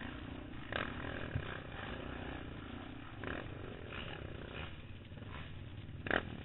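ATV engine running steadily at low revs, with a few short sharp knocks and rattles. The loudest knock comes near the end.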